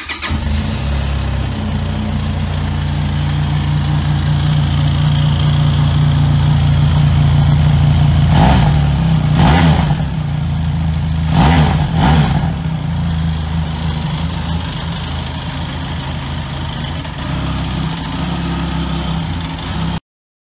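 Benelli TRK 502 X's 500 cc parallel-twin engine idling through its stock stainless-steel exhaust. It is blipped four times, in two pairs about eight to twelve seconds in, each a quick rise and fall in revs before settling back to idle. The sound cuts off suddenly near the end.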